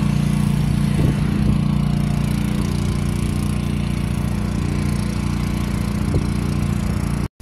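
An engine running steadily at an even speed with a low hum, cutting off abruptly near the end.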